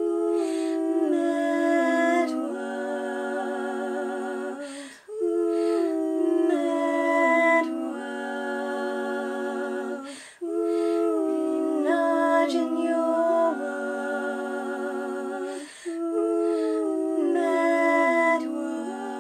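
Three-part a cappella harmony from one woman's voice, layered over itself: the song's closing phrases as long held chords, in four phrases of about five seconds with short breaks between them.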